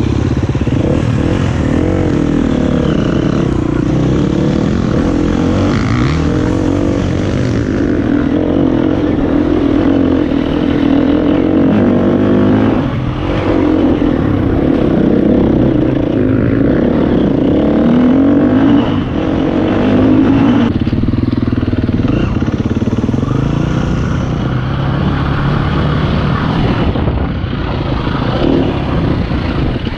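Enduro dirt bike engine running under load while being ridden, its revs repeatedly rising and falling as the throttle opens and closes.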